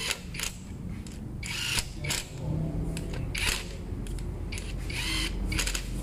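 Cordless power driver run in several short bursts, spinning down and tightening the camshaft bearing-cap bolts on the cylinder head.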